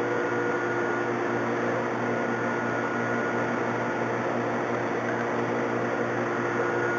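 Steady mechanical hum with an even hiss and a faint high whine, like a running electric motor or fan; no air-hose blast or cutting is heard.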